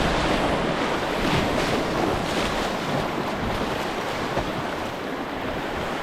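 Rushing river water making a steady noise, with some wind on the microphone.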